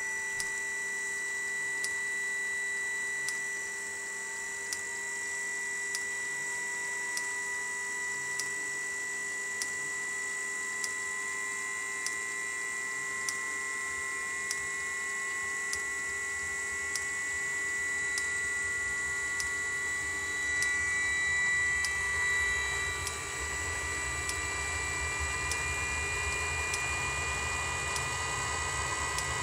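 Webasto Thermo Top C heater in a cold start: the combustion-air blower runs with a steady whine, some tones slowly rising in pitch, while the fuel dosing pump ticks about every 1.3 seconds. About 20 seconds in, a low rumble builds as the burner begins to fire.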